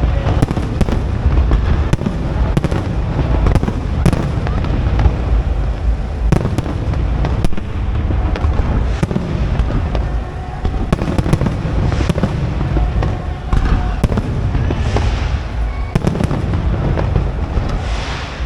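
Fireworks display: aerial shells bursting in quick succession, many sharp bangs over a constant low rumble, with a couple of brief hissing spells near the end.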